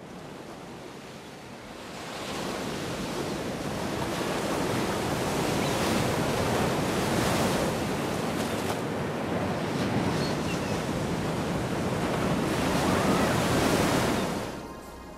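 A steady rushing, surf-like noise that builds up over the first couple of seconds, swells a few times and fades out near the end.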